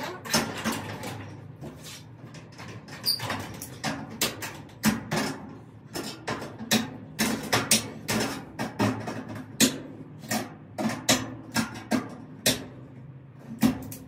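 Hand tools clicking and knocking against the metal track and bracket hardware of a sectional garage door during repair, in irregular sharp strikes about one or two a second.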